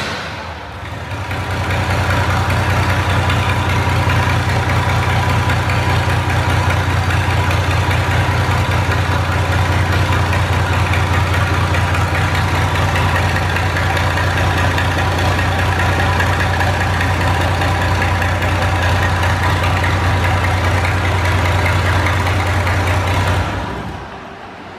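Big old truck engine idling steadily through an open exhaust, a deep, noisy rumble echoing inside a shed. It is switched off near the end.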